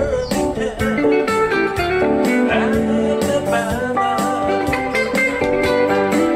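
Live band music led by guitars, plucked and strummed in a steady rhythm, playing a Samoan party song.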